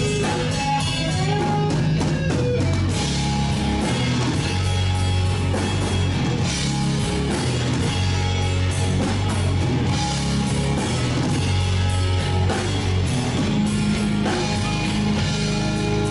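Blues-rock band playing live: electric guitar, bass guitar and drum kit together at a steady loud level.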